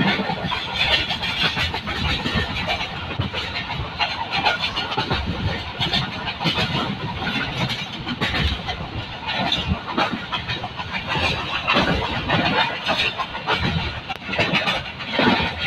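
A vehicle engine running, with a rough, fluctuating noise over it.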